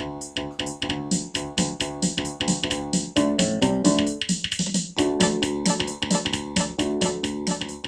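Instrumental music: keyboard chords over a fast, steady beat of about five or six strokes a second, with a brief run of changing notes a little past the middle.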